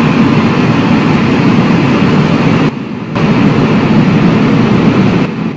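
Loud, steady rumbling noise from the closing animation's sound effect, heaviest in the low range, dipping briefly a little past halfway and dropping slightly near the end.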